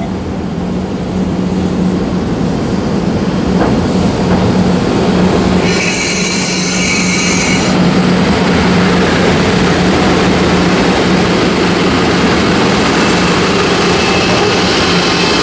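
A freight train double-headed by two EF64 1000-series electric locomotives arriving at the station, growing louder as it approaches and passes. Wheels rumble on the rail under a steady low hum from the locomotives, and about six seconds in there is a high screech for roughly two seconds.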